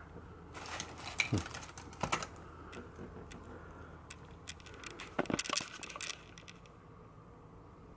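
Scattered light clicks and taps of handling, bunched about a second in and again around five to six seconds in, over a faint steady hum.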